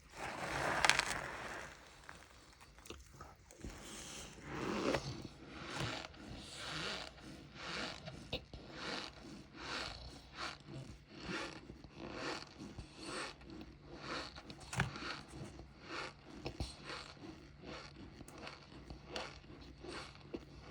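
Close-up chewing of a mouthful of cornstarch, crunching in a steady rhythm of about one and a half chews a second after a louder bite about a second in.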